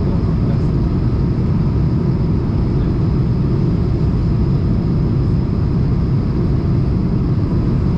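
Steady cabin noise of an Airbus A220 in flight, heard from a window seat: a low, even rumble of its Pratt & Whitney PW1500G turbofans and the airflow past the fuselage, with a faint steady high whine.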